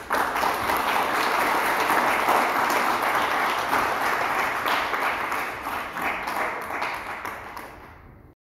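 An audience applauding. It starts abruptly, fades over the last few seconds and then cuts off.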